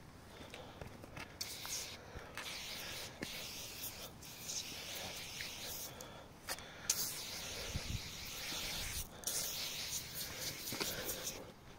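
Cleaning foam sprayed onto a motorcycle in several long bursts, each lasting a second or more, with short breaks between them.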